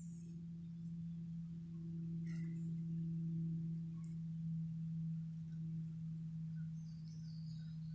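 String trimmer (weed eater) running at a steady speed, giving one even humming pitch.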